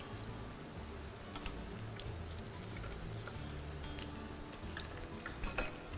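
Oil with onion, garlic and spices in a frying pan starting to sizzle faintly, with small clicks and scrapes from a spatula stirring in the pan. Soft background music plays underneath.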